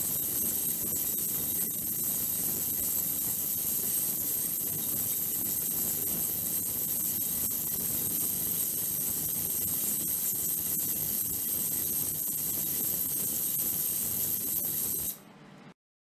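Ultrasonic cleaning tank running with its water agitated: a steady hiss with a thin, high, steady whine over it. The sound cuts off abruptly near the end.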